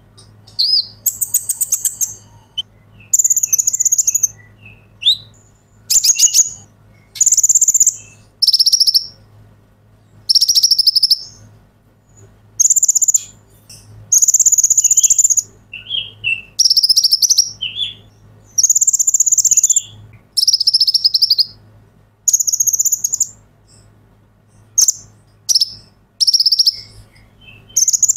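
Male kolibri ninja (van Hasselt's sunbird) singing: a long run of high, buzzy trilled phrases about a second each, repeated every second or two, with short lower chips between them.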